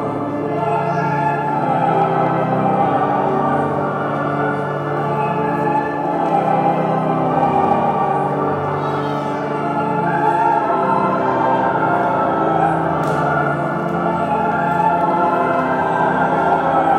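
Slow choral music with voices singing long, held notes, layered over one another at a steady level.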